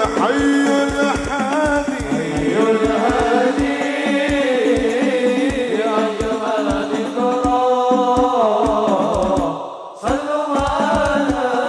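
Background music: an Arabic devotional song (nasheed) sung over a steady drumbeat, briefly dropping out about ten seconds in.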